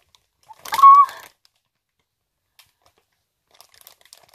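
Packaging rustling briefly about a second in, with a short high squeak inside the rustle. A few faint rustles follow near the end.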